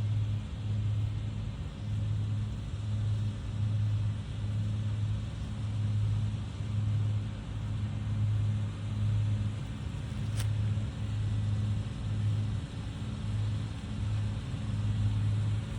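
Farm vehicle engine running steadily at a low drone that swells and eases about once a second, with one short click about ten seconds in.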